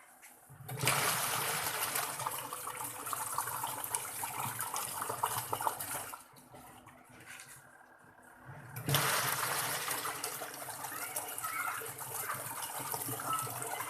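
Water rushing in a single-tub washing machine, in two spells of about five seconds each with a quieter gap between them.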